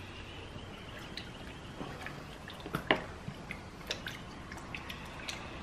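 Water splashing and dripping in a plastic bucket as hands swish a phone around to wash off water-based paint: scattered small splashes, with a louder one about three seconds in.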